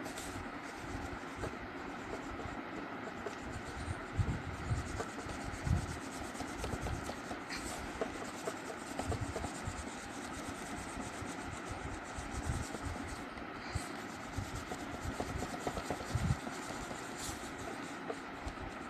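A colouring stick or pencil rubbed back and forth on paper in shading strokes: a steady scratchy rubbing with many soft, irregular low taps.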